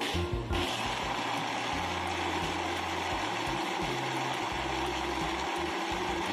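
Countertop blender switched on about half a second in, then running at a steady high speed as it blends ice into a slushy drink.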